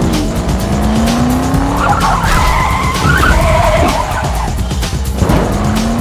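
Car sound effects over music with a steady beat: an engine's pitch rises as it accelerates, tires squeal in the middle, and a second rising acceleration comes near the end.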